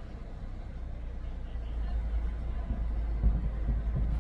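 Steady low road and engine rumble of a moving car, heard from inside the cabin, growing louder, with a few dull low thumps near the end.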